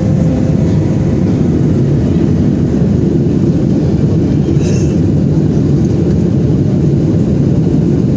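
Steady low roar of a Boeing 737-800 airliner in flight, engine and airflow noise heard inside the passenger cabin.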